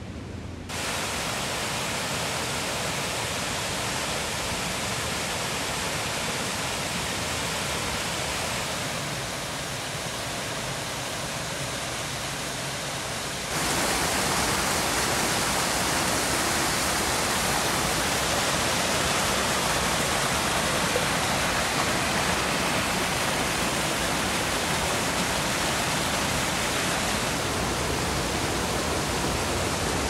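Mountain stream rushing over rocks and small falls: a steady rush of water that starts suddenly just under a second in and grows louder about halfway through.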